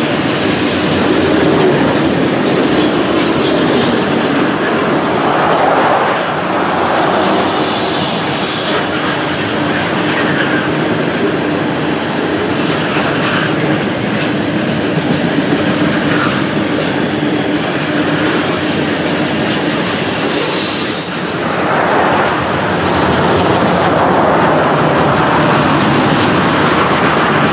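Covered hopper cars of a long potash freight train rolling steadily past: wheels clattering over the rail joints, with a high-pitched wheel squeal coming and going.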